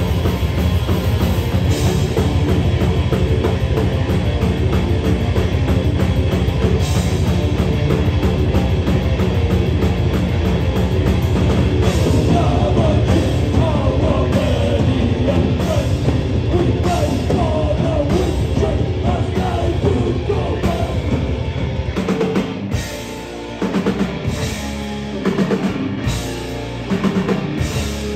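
Live rock band playing a fast, heavy song on drum kit and amplified instruments. About twenty-two seconds in, the continuous fast playing breaks into short stop-start hits.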